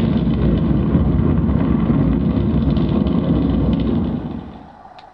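Space Shuttle launch: the loud, deep, steady rumble of its rocket engines, played over a hall's loudspeakers, dropping away quickly about four seconds in.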